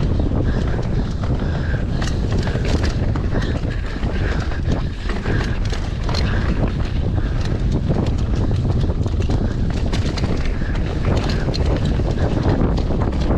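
Wind buffeting the microphone of a mountain biker's camera during a fast downhill run, a steady loud rumble, with frequent clicks and rattles from the bike and tyres on the dirt trail.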